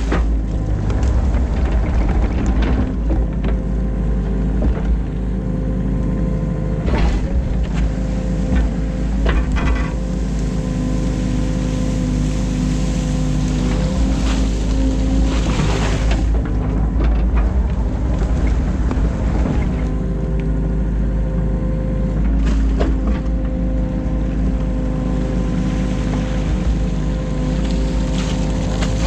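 New Holland Kobelco E50.2 mini excavator's diesel engine running steadily under working load, heard from the cab, its note shifting as the hydraulics take the boom and bucket through their moves. A few knocks come from the digging gear.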